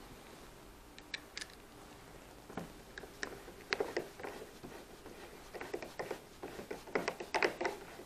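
Hand screwdriver driving a brass screw into a brass strike plate on a door jamb: faint scattered clicks and short scraping strokes of the blade and screw turning, growing busier in the last few seconds.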